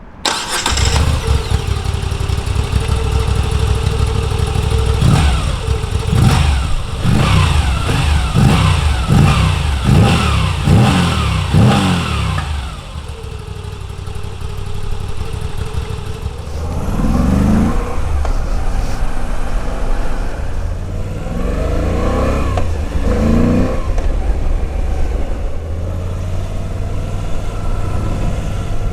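Moto Guzzi V85 TT's air-cooled transverse V-twin engine idling, then blipped sharply about eight times in quick succession, about one rev a second, each dropping back. It settles to idle, then is revved again in a couple of shorter groups before idling steadily near the end.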